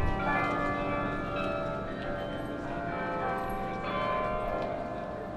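Tower bells ringing: several notes struck in turn, each ringing on and overlapping the next.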